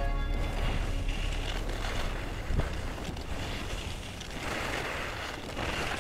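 Skis sliding and scraping over packed snow, with wind rushing over a helmet-mounted GoPro's microphone. The hiss of the skis grows louder about four and a half seconds in.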